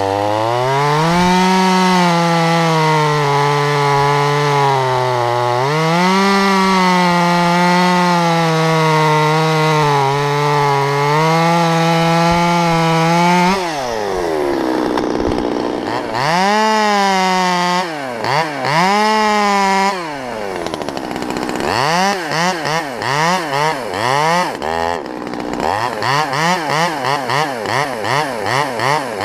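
Stihl MS 200T top-handle two-stroke chainsaw cutting through a cottonwood limb at full throttle for about thirteen seconds, then dropping to idle. It is revved twice briefly, then blipped in a quick series of short revs, about three a second, near the end.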